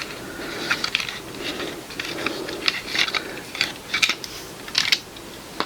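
Plastic Transformers figure parts being handled: a string of irregular sharp clicks and light rattles, as of joints and pieces snapping and knocking together.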